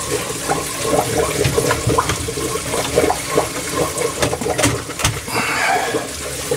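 Water rushing down the overflow pipes and splashing into an aquarium sump: a steady gurgling flow with many small splashes, driven by the filter pump turned down to about 2500–3000 litres per hour.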